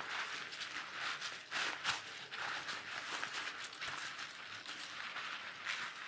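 Kite sail fabric rustling and crinkling in the hands as the sail and spars are handled, an irregular run of light crackles.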